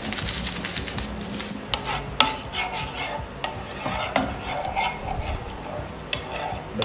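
A metal spoon stirring a thin soy and oyster sauce in a frying pan over low heat. It scrapes and knocks against the pan now and then, the sharpest tap about two seconds in, over a light sizzle.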